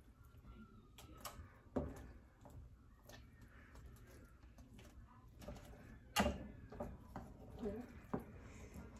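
Metal spatula scraping and clinking against a sheet pan as roasted vegetables and meat patties are turned, with a few sharp clinks, the loudest about six seconds in.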